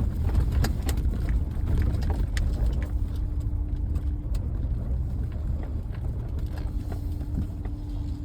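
Truck in four-wheel drive creeping through deep snow, heard from inside the cab: a steady low rumble of engine and tyres, with scattered clicks and knocks and a faint hum that comes and goes.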